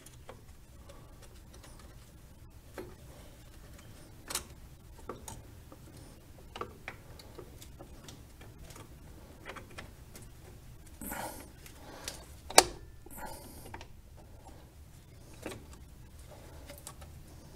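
Light metallic clicks and taps of new drum brake shoes and their hardware being shifted and seated by hand on the rear brake backing plate, about a dozen scattered through, with the sharpest click about twelve and a half seconds in.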